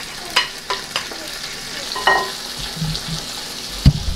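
Beef ribs sizzling in oil in a pot, a steady frying hiss. Several sharp clicks of tongs against the pot in the first half, one ringing briefly, and a heavy knock near the end.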